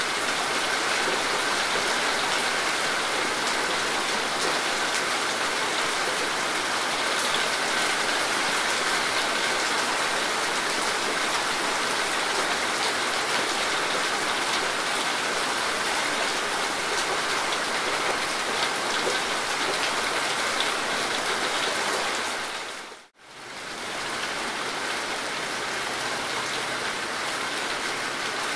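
Steady heavy rain, an even hiss of falling drops. A little before the end it fades out for a moment and comes back in.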